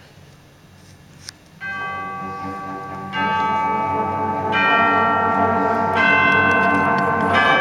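Student orchestra coming back in after a near-quiet pause: a small click, then held chords enter about one and a half seconds in and grow louder in steps as more notes and instruments join, with a bright, bell-like ring.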